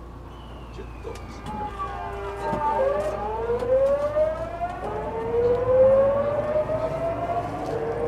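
Tokyu 9000 series electric train's VVVF inverter whine as the train pulls away and accelerates, heard inside the passenger car. A group of tones slides down, then a lower tone rises in three steps, falling back and climbing again each time, while the running noise grows louder.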